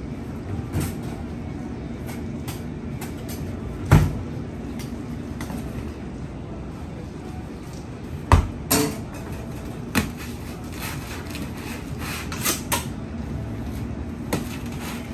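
Clatter of sandwich making at a stainless-steel prep counter: several sharp knocks, the loudest about four and eight seconds in, over a steady background hum.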